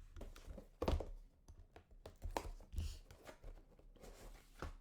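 Hands handling trading cards, their hard plastic holders and packaging: a few light knocks and clicks with some rustling, the loudest knock about a second in.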